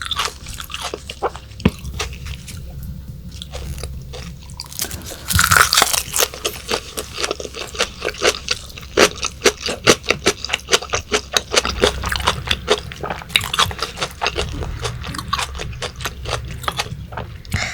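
Close-miked chewing of raw yellowtail with crisp vegetables: a quieter first few seconds, then from about five seconds in a dense run of sharp, rapid crunches.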